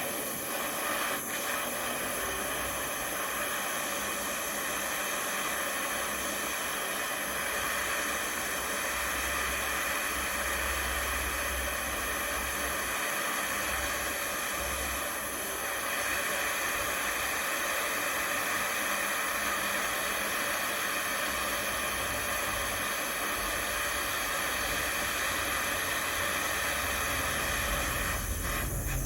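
Gas flame hissing steadily as it heats a steel steering rod. The rod is being heated for straightening, and the steel is hard, so it takes a long time to come up to temperature.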